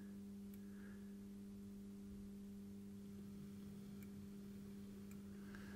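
Faint steady hum from a Hornby Black 5 model locomotive's electric motor running slowly in reverse.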